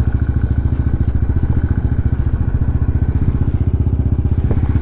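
Motorcycle engine running steadily at low revs, a rapid even chugging.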